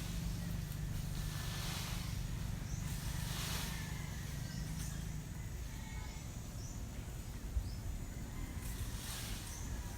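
Rake strokes swishing through dry mango leaves, a few sweeps a couple of seconds apart, over a steady low rumble.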